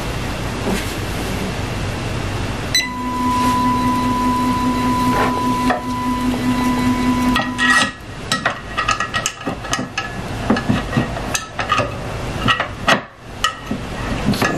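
A steady, fixed-pitch machine whine a few seconds in, stopping about halfway. Then a run of irregular clicks and knocks as parts are handled and set in place on a resin 3D printer.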